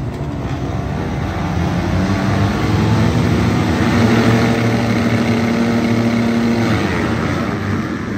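A full line of motocross dirt bikes running together at the start, many engines revving at once and held up at high revs, easing off near the end.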